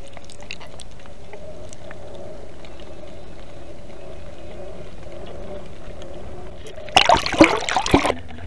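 Muffled, steady water noise with a faint wavering hum, heard through a submerged camera. About 7 seconds in, a loud burst of splashing and knocking lasts about a second as the camera is tossed in churning surf.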